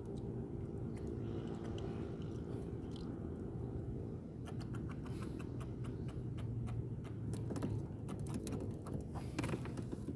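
Quick irregular clicks and small rattles from hands working a fishing handline and hook, thickest in the middle of the stretch and stopping shortly before the end, over a steady low hum.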